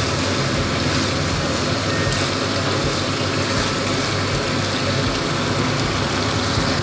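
Chicken bhuna sizzling in a frying pan as it is stirred, a steady even frying hiss over a low steady hum.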